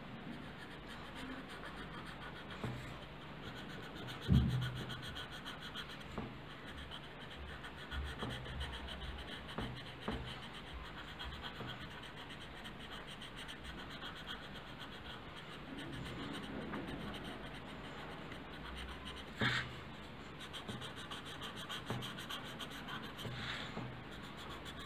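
Coloured pencil scratching faintly on paper in quick back-and-forth shading strokes, as an orange pencil fills in an area. A soft knock comes about four seconds in, and a short click about three-quarters of the way through.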